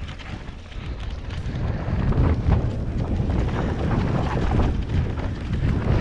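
Wind buffeting the microphone and mountain bike tyres rolling over a dirt and leaf-strewn trail at speed, with rattles and knocks from the bike over rough ground. It gets louder over the first couple of seconds.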